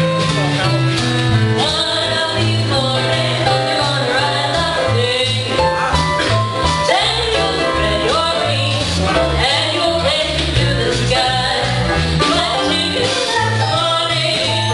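Live band music: a steady stepping bass line and guitar, with a singer's melody gliding above it.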